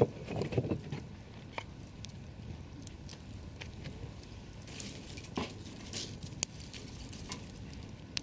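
Campfire crackling: burning wood giving scattered sharp snaps and pops over a low steady hiss, with a brief louder clatter in the first second.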